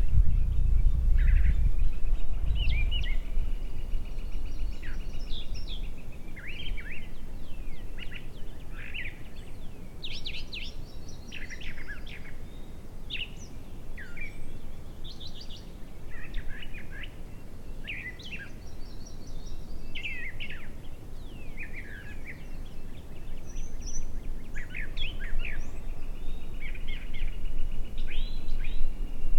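Several songbirds singing outdoors: short whistled phrases and chirps throughout, with a rapid trill twice, near the start and near the end. A low rumble sits under it and is strongest at the start and the end.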